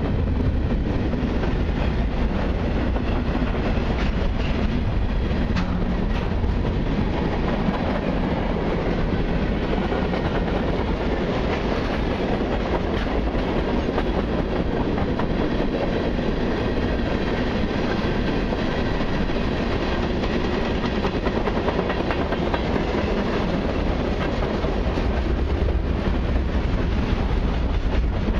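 Freight cars of a long mixed freight train rolling past: a steady rumble of steel wheels on rail, with occasional clicks.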